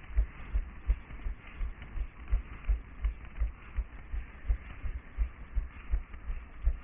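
Running footsteps on a paved path, heard through a head-mounted GoPro as dull, low thumps about three a second, over a steady hiss.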